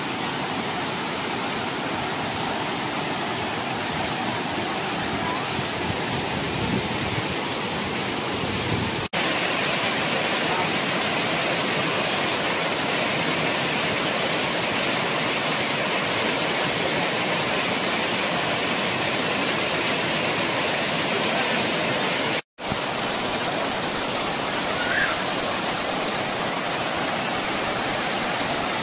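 Waterfall cascading over rocks: a loud, steady rush of falling water. It cuts out for a moment about two-thirds of the way through.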